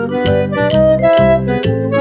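Background music: a keyboard melody over a steady beat.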